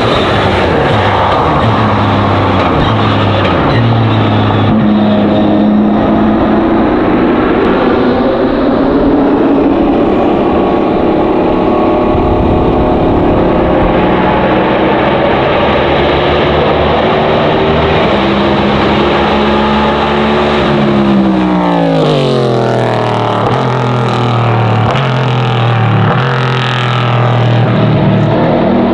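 Race car engines at speed on a road circuit, rising and falling in pitch as the cars accelerate, shift and go by. About 21 seconds in, one car passes with a steep drop in pitch.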